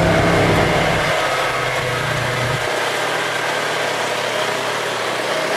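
Side-by-side UTV engine running steadily while wading through floodwater, with a steady rush of splashing water; the deep part of the engine note drops away about two and a half seconds in.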